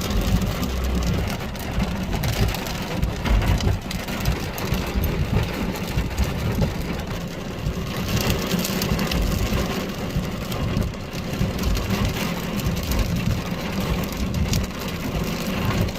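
Car driving on a wet road, heard from inside the cabin: a steady low rumble of engine and tyres, with rain hitting the glass and roof.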